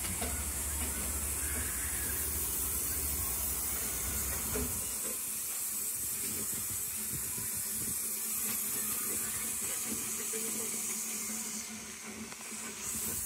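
Double Fairlie steam locomotive James Spooner standing with steam hissing steadily. A low rumble underneath stops about five seconds in.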